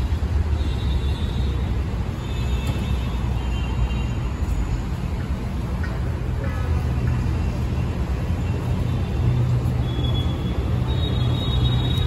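Street traffic ambience: a steady low rumble of road traffic, with brief high tones now and then.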